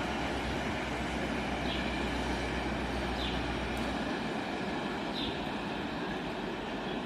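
EMD G16 diesel-electric locomotive running after a hard start, a steady engine noise with a short high chirp repeating about every two seconds. A deep hum under it drops away about four seconds in.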